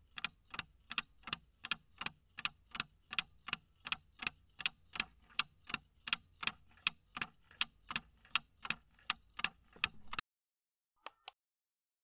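Countdown-timer sound effect: clock ticking at about three ticks a second, stopping about ten seconds in, then two short clicks near the end as time runs out.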